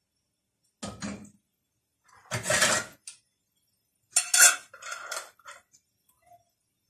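Metal twist-off lid clinking and scraping against a glass jar as it is picked up and screwed on tight. There are short clatters about a second in and again at two and a half seconds, then a longer run of scraping clicks from about four seconds as the lid is tightened.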